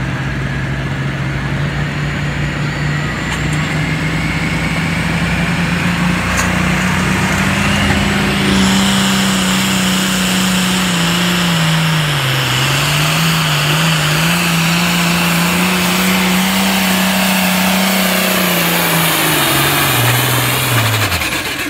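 A pulling tractor's engine runs at full throttle as it drags a weight-transfer sled down the track. It is a loud, steady drone whose pitch climbs over the first several seconds while a high whine rises above it. The revs sag twice midway and fall away near the end.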